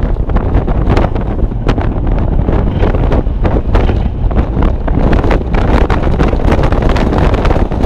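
Mazda MX-5 Miata's four-cylinder engine accelerating hard in third gear, revs climbing steadily, under loud wind buffeting on the microphone in the open cockpit.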